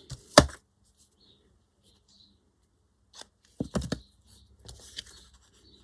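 Scissors snipping off the end of a piece of craft material: one sharp snip about half a second in, then a few knocks and rustles of handling about three and a half seconds in.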